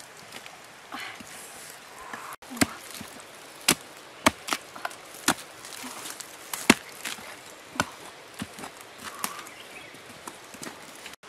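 A long blade chopping into a rotten tree stump: about six sharp strikes at uneven intervals, starting a little over two seconds in, with softer knocks of splintering wood between them.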